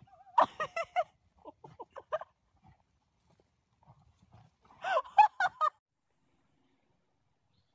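Miniature pony whinnying: a short quavering call about half a second in and another about five seconds in, with softer notes between them.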